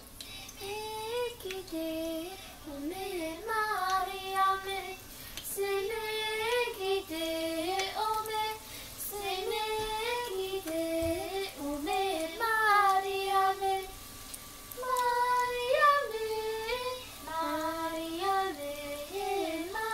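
A child singing a melody without accompaniment, in held notes that step up and down in pitch, with short pauses between phrases.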